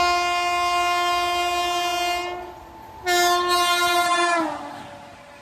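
WAP-7 electric locomotive horn sounding two long blasts on a fast run through a station, the second one falling in pitch near its end as the locomotive goes past.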